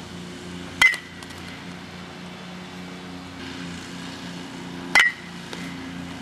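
Baseball bat hitting pitched balls: two sharp cracks, about four seconds apart, each with a brief ring, over a steady low hum.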